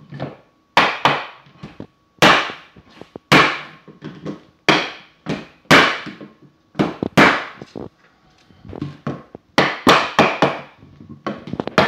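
Hammer striking a scrap of 2x4 held as a tapping block against the edge of a vinyl floor plank, knocking the planks together to close the cracks at the joints. It is a series of sharp wooden knocks, roughly one a second, some coming in quick pairs.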